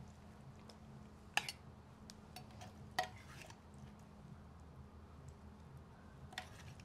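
A serving spoon knocking against a clay pot and a plate as food is dished out: three sharp clinks, about 1.5 seconds apart, with small scraping ticks between. A faint steady low hum sits underneath.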